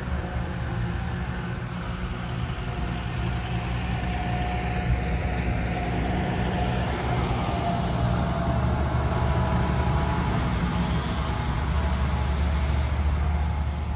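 John Deere tractor engine running as it pulls a Schuitemaker forage wagon across the grass field, a steady low drone that grows louder in the second half as the tractor comes close.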